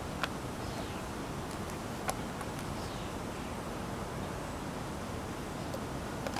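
Steady outdoor background hiss, with three small sharp clicks from a hinged ring box being handled, about a quarter second in, about two seconds in and just before the end.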